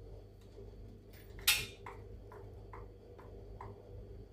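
Cuckoo clock movement ticking steadily with its pendulum swinging, about two ticks a second. One louder sharp click comes about a second and a half in.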